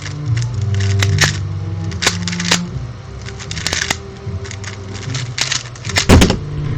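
Rubik's Cube being turned fast in a speedsolve, with irregular runs of sharp plastic clicks and clacks.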